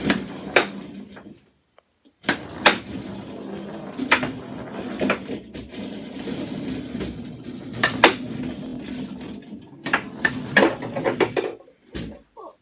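Foosball table in play: sharp clacks at irregular intervals as the ball is struck by the plastic players on the rods and knocks against the table, over a steady rattle of the rods and handles. The sound breaks off briefly about a second and a half in.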